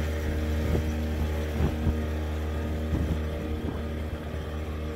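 Small 4 hp outboard motor running steadily, a constant low engine hum, with a few faint clicks over it.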